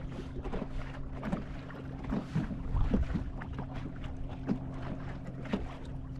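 Boat motor running with a steady hum at slow trolling speed, with irregular light knocks over it, like water slapping the hull.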